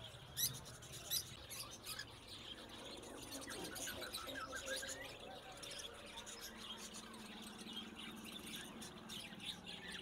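Caged cockatiels and other small parrots chirping, many short, sharp calls overlapping, with two louder chirps in the first second or so. A faint steady low hum comes in about six and a half seconds in.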